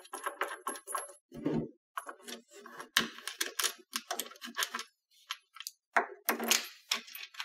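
Steel bolts and washers clicking and clinking as they are handled and a bolt is pushed and turned by hand into a foosball table's side panel, with a couple of duller knocks.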